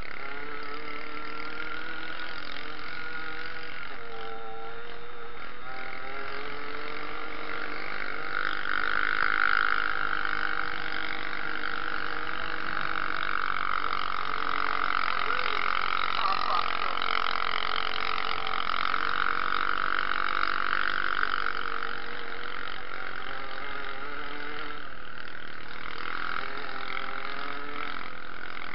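Dirt bike engine running while ridden along a rough trail, heard from on the bike, its pitch rising and falling with the throttle. A steadier, higher drone sets in about eight seconds in and drops away near twenty-one seconds.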